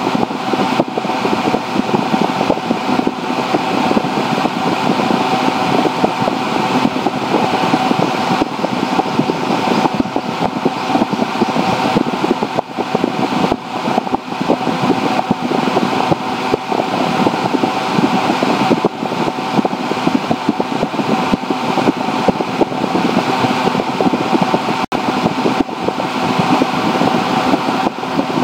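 Steady mechanical noise with a faint constant tone running through it.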